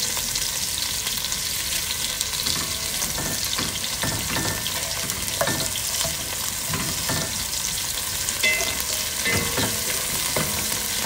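Sliced onion and minced garlic sizzling in hot oil in a non-stick pan, stirred with a wooden spatula. The steady sizzle is broken by irregular short scrapes and knocks of the spatula against the pan.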